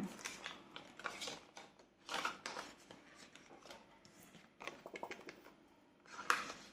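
Soft rustling and handling of paper banknotes and envelopes, in several short bursts.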